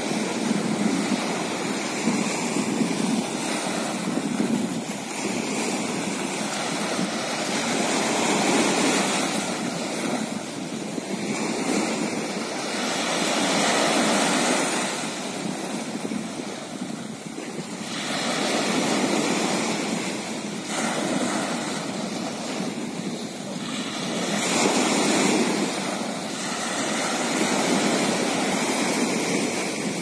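Small sea waves washing onto the shore, the surf swelling and ebbing every five or six seconds.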